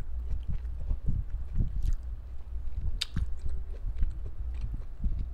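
Close-miked chewing of a mouthful of grilled BBQ pork with the lips closed: soft, repeated wet chews, with one sharp click about three seconds in.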